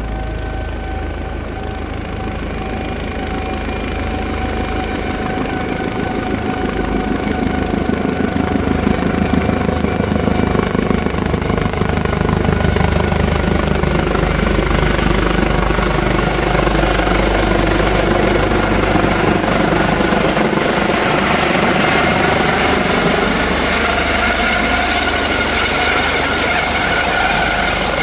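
Medical helicopter approaching and descending toward its pad. Its rotor beat and turbine whine grow steadily louder, with high whining tones that slowly bend in pitch as it comes nearer.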